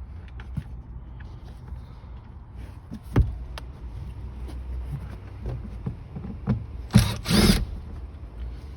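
Tool and handling noises as the two screws holding a car's sun visor are backed out: faint scattered clicks, a sharp click a little past three seconds in, and a loud clattering burst about seven seconds in, over a low steady hum.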